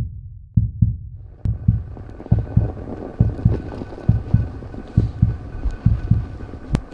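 A heartbeat-style sound effect: paired low thumps, lub-dub, a little more than one pair a second. About a second and a half in, the steady rushing noise of a mountain bike ride over snow comes in under the thumps, and there is a sharp click near the end.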